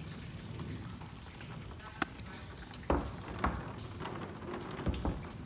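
Water trickling from a partly ice-blocked pipe into a plastic IBC tote, with a few light knocks as the pipe is handled, about two, three and five seconds in.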